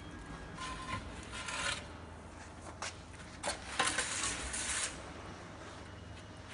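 Metal pizza peel scraping across the oven floor as pizzas are turned and slid out, in several short scrapes, the longest about four seconds in.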